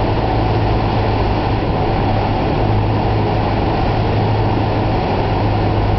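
Cessna 172M's four-cylinder Lycoming engine and propeller running at a steady drone, with a constant low hum under a steady rush of air noise.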